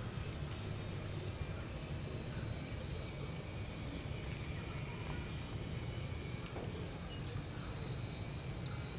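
Outdoor ambience: insects keeping up a steady high drone, with a few short chirps in the second half, over a low rumble.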